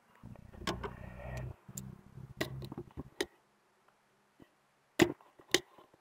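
Plastic cups, cans and tubs clicking and knocking against one another as a hand moves and sets them down. A low rubbing rumble runs through the first three seconds, and the loudest knock comes about five seconds in.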